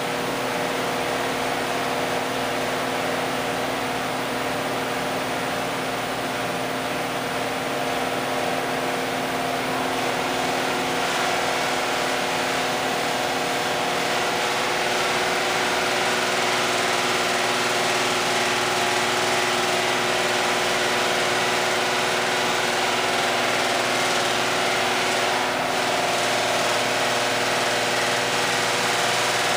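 New Holland LS180 skid steer's diesel engine idling steadily.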